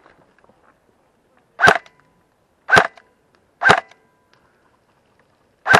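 Airsoft rifle fired on semi-auto: four single sharp shots, the first three about a second apart and the fourth after a pause of about two seconds.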